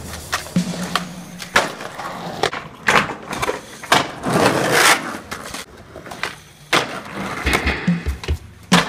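Skateboards on concrete: wheels rolling and wooden decks knocking and clacking in a series of sharp impacts, with a louder rush of noise about four seconds in.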